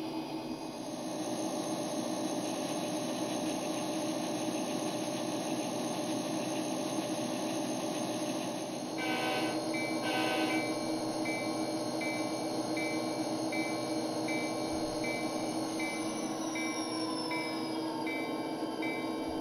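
Recorded sounds of a Metra MP36PH diesel locomotive played through a Kato Sound Box speaker. The prime mover runs steadily and the horn gives two short blasts about nine and ten seconds in. The locomotive bell then rings steadily, about one and a half strokes a second, while the engine note falls near the end.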